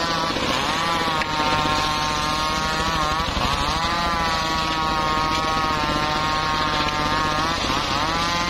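Homemade bench-mounted circular saw driven by a stationary engine, the blade giving a steady loud whine over the engine's low running. The whine sags in pitch three times as the blade bites into a wooden board under load, then recovers.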